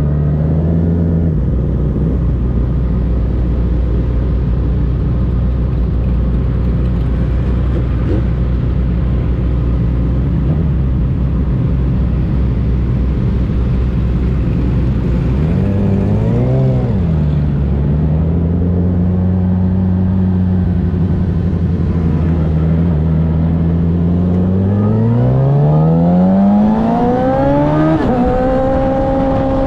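Motorcycle engine idling steadily, blipped once about halfway through, then pulling away with revs rising for several seconds before an upshift near the end.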